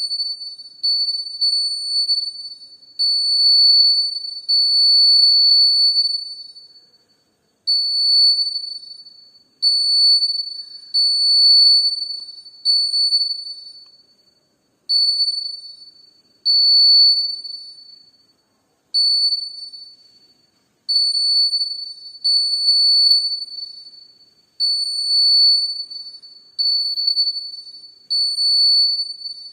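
Electronic alarm sounding a single high-pitched tone that is set off over and over at irregular intervals, each time starting at once and fading away over a second or two.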